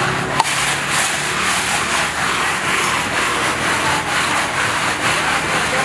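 A metal sheer yakh pot grinding as it is turned by hand in its bed of ice, and a paddle scraping the freezing cream off its inner wall: a steady rubbing and scraping, with one sharp click about half a second in.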